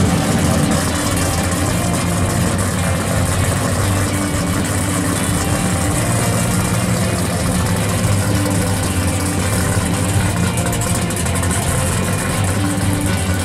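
Pro street 1970 Plymouth Cuda's engine idling steadily.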